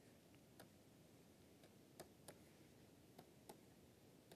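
Near silence with faint, irregular clicks of a stylus tapping and writing on a tablet, about seven in a few seconds.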